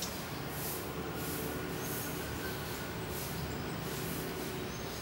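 Steady outdoor ambience: a low rumble with faint high-pitched pulses repeating about twice a second.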